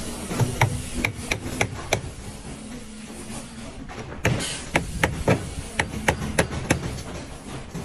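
Claw hammer striking nails into the wooden boards of stair formwork: about six quick blows, a pause of about two seconds, then about eight more from about four seconds in.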